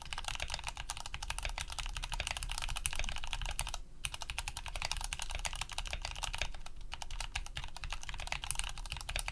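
Fast continuous typing on a mechanical keyboard with lubed, filmed Cherry MX Brown switches, aluminium plate and GMK keycaps, with a brief pause about four seconds in.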